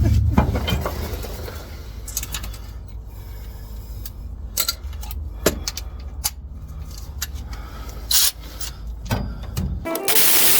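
Scattered metallic clinks, rattles and a few louder knocks of tools and bolts at a truck's rear differential cover, over a steady low rumble. Music and loud noise come in near the end.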